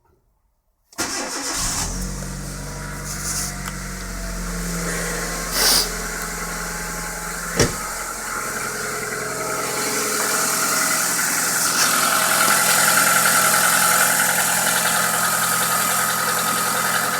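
Kia Rio's 1.4-litre G4EE four-cylinder petrol engine starting about a second in and then idling cold, with two brief sharper sounds partway through. The owner hears a knock in this engine, one that the dealer says it does not have.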